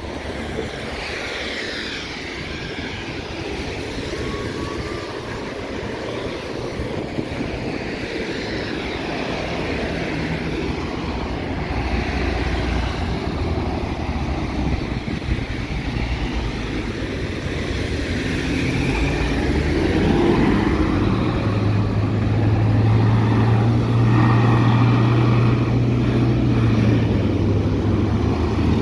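Road traffic at a wet road: vehicle engines running and tyres on the wet surface. A heavy engine's low, steady drone sets in about two-thirds of the way through, and the whole sound grows gradually louder.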